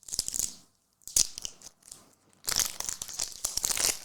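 Crinkling and tearing of a foil trading-card pack wrapper being handled and opened. It comes in several bursts with a sharp click about a second in, and the longest stretch of crinkling is near the end.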